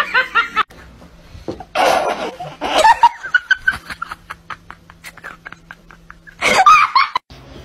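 A person laughing in short bursts, with a fast run of faint clicks, about five or six a second, in the middle.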